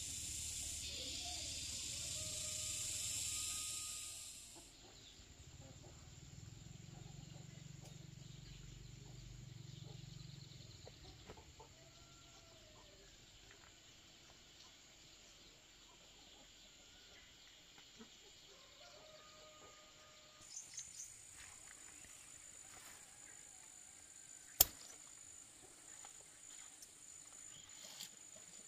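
A steady high hiss cuts off about four seconds in. Then a quiet outdoor bed follows, with scattered short bird calls and one sharp click near the end.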